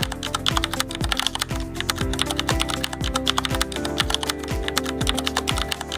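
Rapid keyboard typing sound effect, many quick clicks, over background music with a steady beat.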